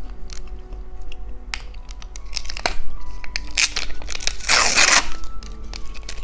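Plastic snack wrapper being crinkled and torn open in scattered crackles, with one loud tear about four and a half seconds in. Soft background music plays underneath.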